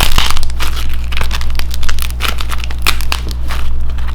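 A dried, nail-polish-coated clay toast being crushed: a dense run of irregular crackles as the hardened coating cracks, over a steady low hum.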